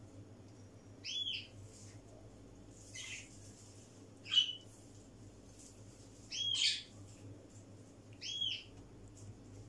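A bird chirping now and then: short arching chirps spaced a second or more apart, the sharpest and loudest a little past four seconds in.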